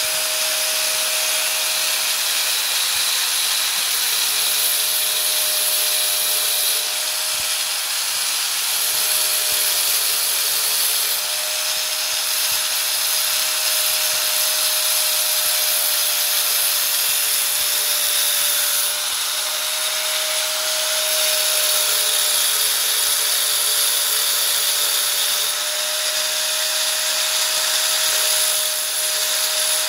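Electric angle grinder with a thin cut-off disc running with a steady whine while cutting into ribbed steel rebar. The grinding hiss swells and eases a few times.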